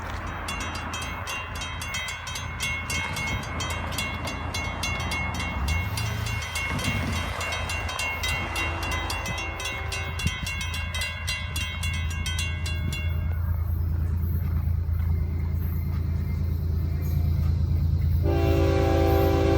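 A grade-crossing bell rings rapidly, then stops about two-thirds of the way through, over the low rumble of Florida East Coast ES44C4 diesel locomotives growing louder as the train approaches. Near the end the lead locomotive's horn sounds a loud chord.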